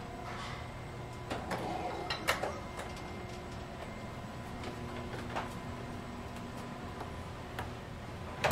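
1919 Graves freight elevator in operation: a steady machine hum with irregular clicks and knocks from the car and its hoistway. The sharpest knock comes about two seconds in and another at the very end.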